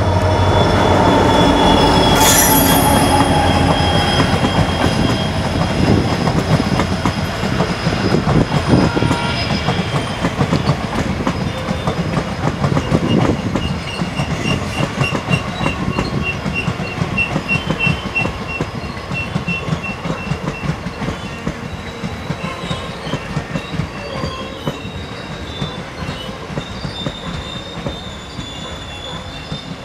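Train running on rails with wheels squealing and clickety-clack, loudest at the start and slowly fading.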